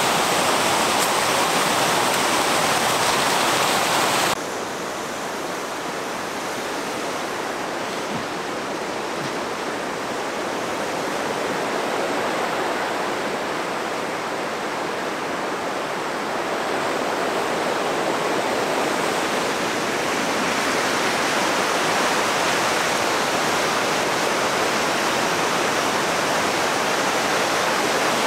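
Steady rushing of a river's waterfall and rapids. The rush drops abruptly and loses its high hiss about four seconds in, then slowly swells again.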